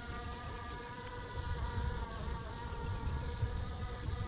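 A steady buzzing hum made of several even tones, over a low, uneven rumble that grows stronger after about a second and a half.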